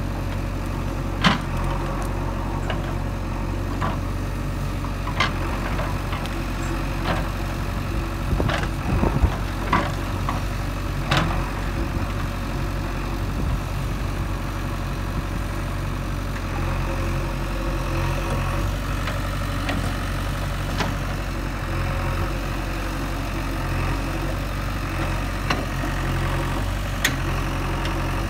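JCB 3DX backhoe loader's diesel engine running steadily as the backhoe digs and clears brush, with scattered sharp clanks and knocks from the bucket and arm, the loudest about a second in and around nine seconds in.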